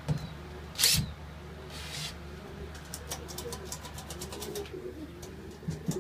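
Domestic pigeons cooing, low warbling coos going on through most of the stretch over a steady low hum. About a second in there is one sharp clatter, the loudest sound.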